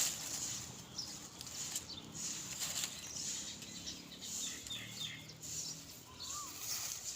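Faint outdoor ambience: a steady high hiss with a few short bird chirps around the middle and a small warbling call near the end.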